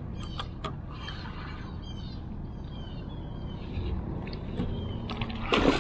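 Birds calling in quick runs of short, high, falling chirps, then a sudden loud splash in the water near the end.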